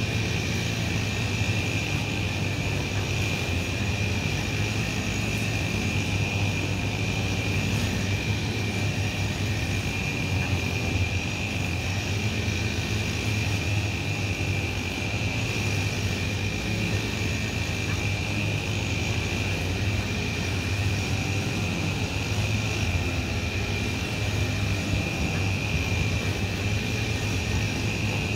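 Steady low mechanical hum with a constant high-pitched whine over an even background noise, unchanging throughout, with no distinct events.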